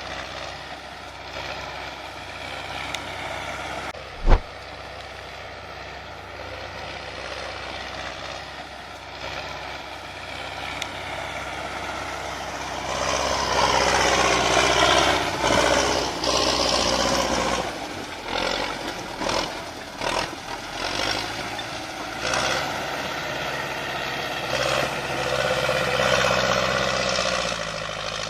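TDT-55 tracked logging skidder's engine running steadily, then revving up louder about halfway through and surging up and down. There is a single sharp knock about four seconds in.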